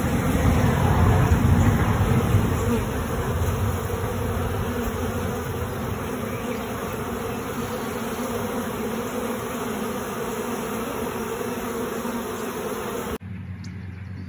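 Steady, dense buzzing of a mass of honeybees swarming over the comb of an open nucleus colony as its frames are lifted out. The hum is heavier and deeper for the first few seconds and drops away abruptly near the end.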